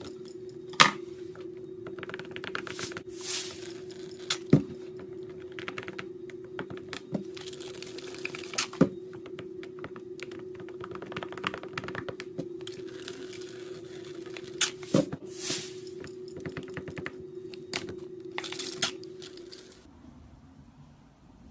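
Slime being handled and stretched, giving irregular sticky clicks, crackles and pops, over a steady low hum that cuts off near the end.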